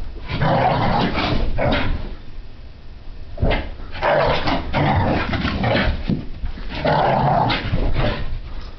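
French Brittany spaniel puppy in a frantic play fit, growling and vocalizing in three rough bursts about every three seconds.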